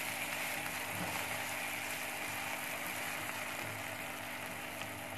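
Chopped onions, green chillies and garlic paste sizzling steadily in oil in a frying pan while being stirred with a spatula, the garlic paste being fried until its raw smell is gone. A low steady hum runs underneath.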